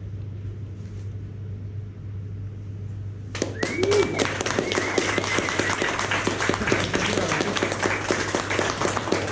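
A low steady hum, then, about three seconds in, a small audience suddenly breaks into applause with a whistle-like cheer, and the clapping carries on.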